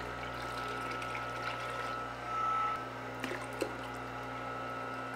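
Water being poured from a container into a glass tank, splashing and bubbling, swelling briefly about halfway. A steady electric hum runs underneath from the small centrifugal water pump, which the level controller has switched on while the tank fills.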